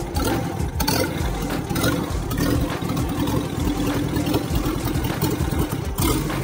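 Freshly overhauled Mitsubishi Colt L300 engine running at a steady idle.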